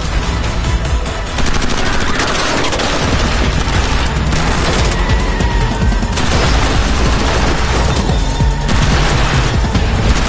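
Action-film car chase soundtrack: sustained rapid gunfire mixed with dramatic music, growing louder about a second and a half in.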